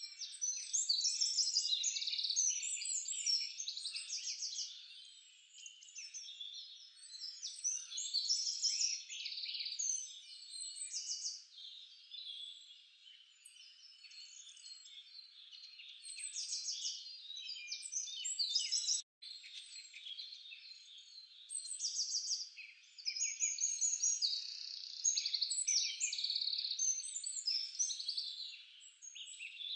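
Dense chorus of high chirping animal calls, many in rapid pulsed runs, swelling and fading throughout, with a momentary dropout about nineteen seconds in.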